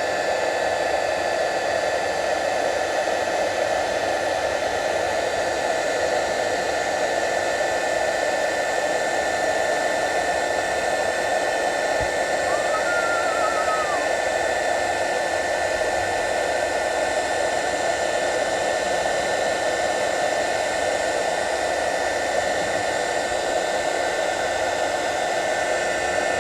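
Heat gun blowing steadily at a constant pitch, shrinking adhesive-lined marine-grade heat shrink over a freshly crimped battery cable lug.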